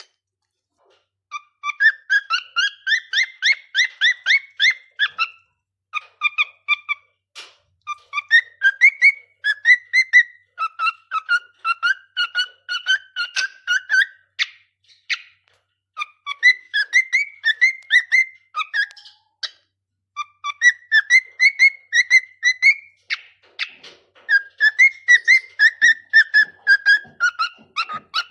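Cockatiel whistling its song: phrases of quick, rapidly repeated chirping notes that warble up and down, broken by short pauses every few seconds.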